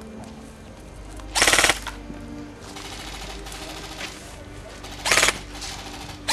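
Airsoft gun firing two short full-auto bursts of rapid clicks, the first about a second in and lasting half a second, the second shorter, around five seconds in, over steady background music.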